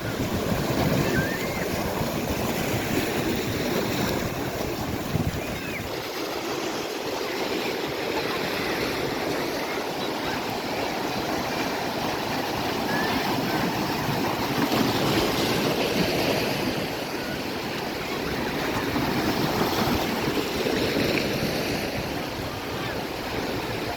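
Ocean surf washing onto a beach: a steady rush of noise that swells louder as each wave breaks and then eases off.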